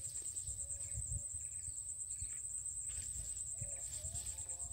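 Steady high-pitched insect trill, pulsing rapidly without a break, over a low rumble on the microphone.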